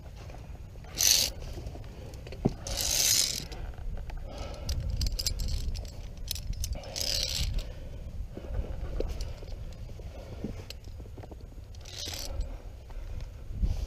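Via ferrata climbing: metal carabiners clinking and sliding on the steel safety cable, and gloved hands and boots scraping on the rock. A few short hissing scrapes come about one, three, seven and twelve seconds in, over a steady low rumble.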